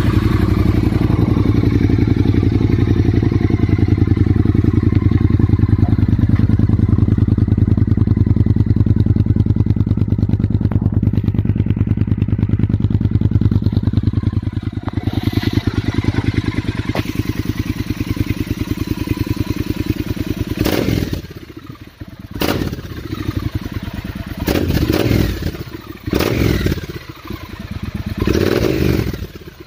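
Triumph Bonneville T120 parallel-twin engine, just started, running through a handmade Scrambler 900-style twin upswept exhaust with fibreglass-packed silencers and heat-wrapped headers. It idles steadily for about fifteen seconds, then the throttle is blipped several times over the last ten seconds, the note rising and falling with each blip.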